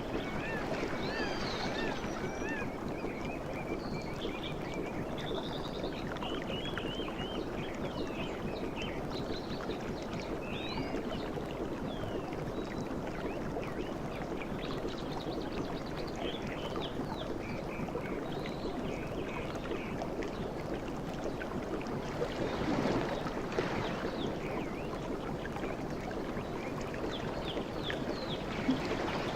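Sea waves washing steadily, with songbirds chirping and warbling over them throughout; one wave swells louder about three-quarters of the way in.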